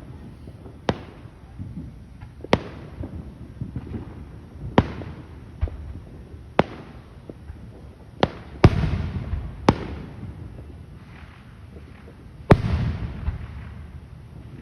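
Aerial fireworks bursting overhead: about ten sharp bangs, one every second or two, two of them near the middle and near the end followed by a few seconds of crackling.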